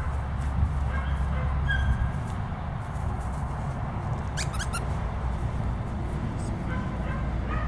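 A squeaky toy squeaks several quick times about halfway through, over a steady rumble of wind on the microphone.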